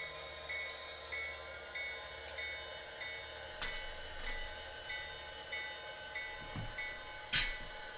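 Sound decoder in an HO-scale Norfolk Southern diesel locomotive playing a steady low diesel engine hum and a locomotive bell ringing in an even rhythm, a little under twice a second. A few sharp clicks come through, the loudest near the end.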